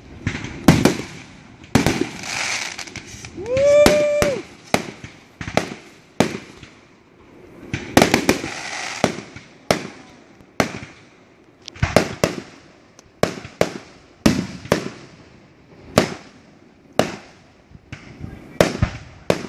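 Fireworks display: aerial shells bursting in a steady run of sharp bangs, about one to two a second, with hissing crackle between some of them. A rising whistle sounds about four seconds in.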